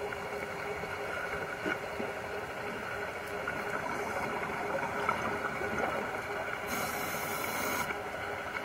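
Underwater sound picked up by a diver's camera in its housing: a steady hiss and low hum, broken near the end by about a second of sharper high hiss, typical of a scuba regulator breath.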